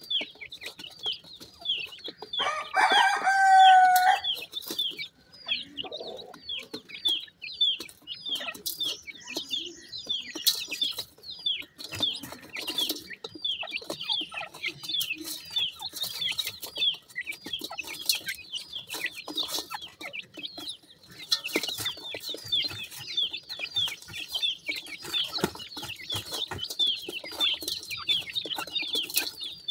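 Francolin chicks peeping without pause, a rapid stream of short, high-pitched down-slurred peeps, with scattered clicks of beaks pecking feed in the tub. A louder, lower drawn-out bird call stands out about three seconds in.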